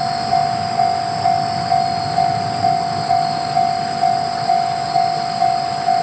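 Japanese railway level-crossing warning bell ringing: an electronic clanging tone that strikes steadily about twice a second. It signals that the crossing is closed for an approaching train.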